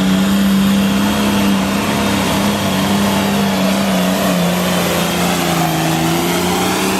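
Competition pulling tractor's engine running flat out under load as it drags the sled, a loud steady high-revving note that sags slightly about four seconds in and climbs back near the end.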